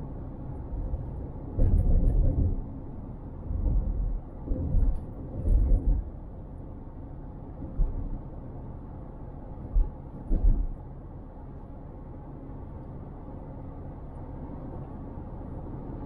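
Car driving, heard on a dash cam: a steady low road rumble, broken in the first eleven seconds by several irregular heavy low thumps.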